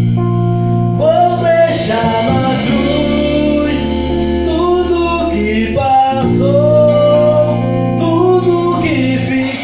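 A band rehearsing a Christian worship song: guitars and bass holding chords under a voice singing long, gliding notes without clear words.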